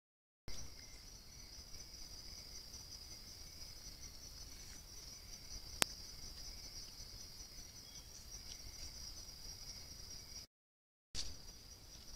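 Night insect chorus: a steady high-pitched trill with a fainter lower buzz beneath it, and one sharp click about six seconds in. The sound drops out briefly at the start and again near the end.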